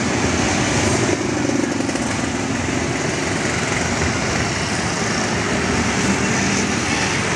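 JR205 electric commuter train running across a railway viaduct overhead, its wheels and running gear giving a steady rush of noise, mixed with street traffic and light motorbike engines below.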